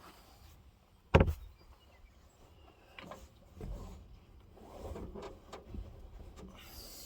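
A sharp, loud knock about a second in, followed by several softer knocks and some rustling.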